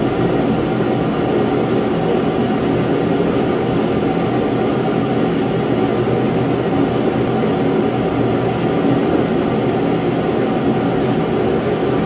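Propane shop heater running with a loud, steady, unbroken noise.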